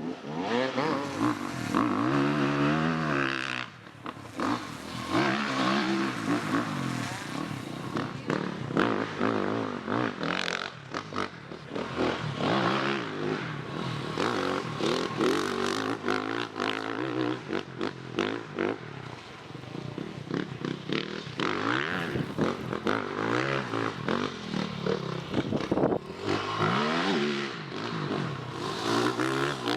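A vehicle engine revving up and down over and over, its pitch repeatedly rising and falling, with knocks and clatter throughout.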